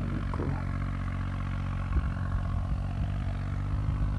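Diesel tractor engine running steadily under load while pulling a harrow through dry soil, with a sharp knock about two seconds in.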